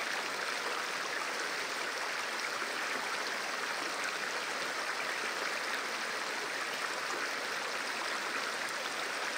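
Shallow snowmelt stream flowing steadily, an even rushing of running water.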